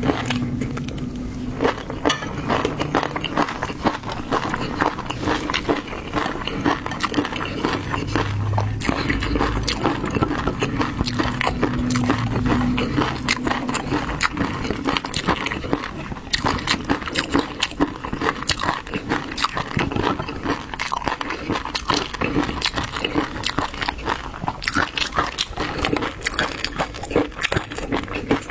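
Close-miked chewing and biting of raw seafood, with many small sharp crunches and clicks all the way through.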